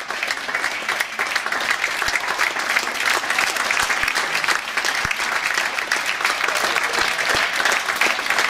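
Audience applauding, a steady, dense clapping that does not let up.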